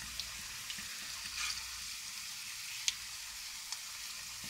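Potato batons deep-frying in a pan of hot oil: a steady high sizzle with a few sharp pops along the way.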